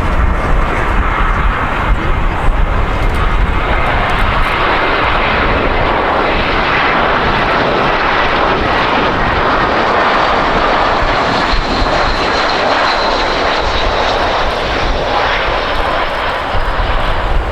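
An Airbus A320 landing close by. Its twin jet engines make a loud, steady noise with a faint high whine over it.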